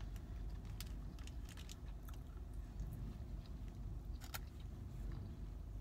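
A person chewing a mouthful of taco, with a few sharp mouth clicks, over a steady low hum in a car cabin.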